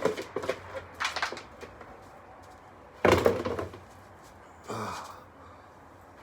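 Knocks and clattering from things being handled, with one loud bang about three seconds in, then a short creak-like sound falling in pitch.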